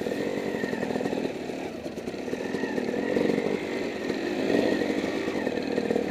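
Dirt bike engine running at low speed, the revs rising and falling as the throttle opens and eases through mud, heard close up from the rider's own bike.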